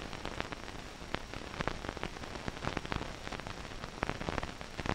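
Crackle and hiss of an old film soundtrack: a steady faint hiss with many irregular sharp clicks and pops, and no other sound.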